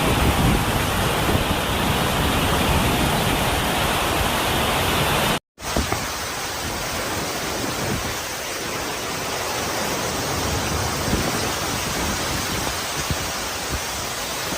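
Steady rushing noise of a typhoon downpour, heavy rain and wind. It cuts out for a moment about five and a half seconds in, then carries on.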